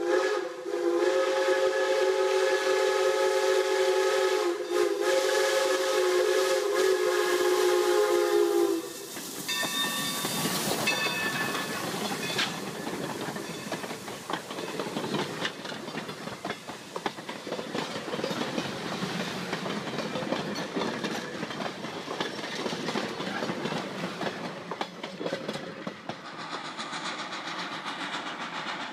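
Steam locomotive's whistle blowing one long chord of several tones, broken briefly twice, stopping about nine seconds in. Then the engine and passenger coaches pass close by: a rumble with steady clicking of wheels over rail joints and some hiss.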